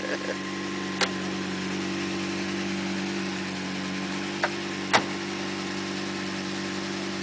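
Lamborghini Murciélago V12 idling steadily, with a few sharp clicks about a second in and again near five seconds.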